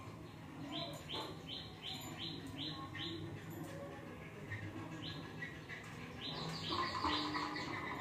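A small bird chirping in two quick runs of short, falling notes, about three a second, over a faint steady background.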